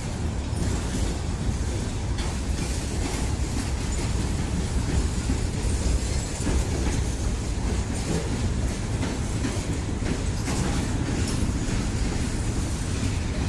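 Freight train cars rolling past at close range: a steady low rumble with scattered clacks of wheels over the rail joints.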